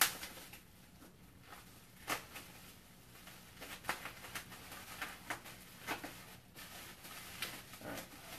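Stiff plastic clamshell packaging being cut and pried open with a knife: an irregular series of short crackles and scrapes, the sharpest at the very start and about two seconds in.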